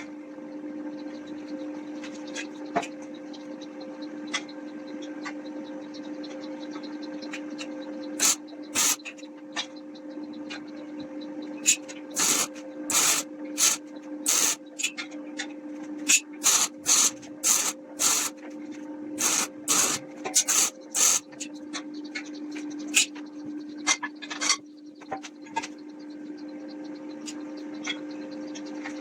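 A run of short, irregular rubbing or scraping strokes over a steady low hum.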